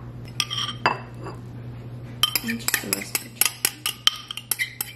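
A spoon clinking and scraping against ceramic bowls as chicken and rice are scooped from one bowl into another. After about two seconds the clinks come quickly, several sharp, ringing strikes a second.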